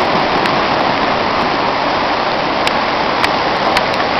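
Muddy floodwater from an overflowing canal rushing down a street, a loud steady rushing noise, with a few faint sharp ticks scattered through it.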